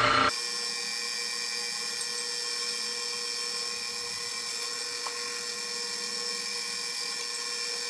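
Drill press motor running with a steady whine while its bit drills holes through a steel knife blank.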